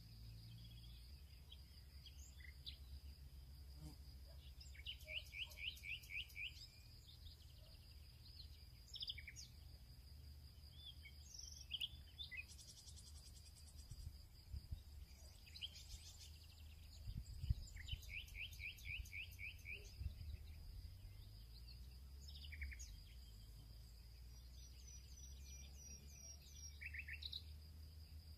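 Faint background birdsong: scattered chirps and a few quick runs of rapidly repeated notes, over a steady high-pitched whine and a low hum.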